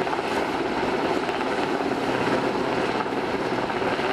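Westland Sea King HU4 helicopter hovering, its rotors and twin turboshaft engines making a steady rush of noise with a low held hum in it.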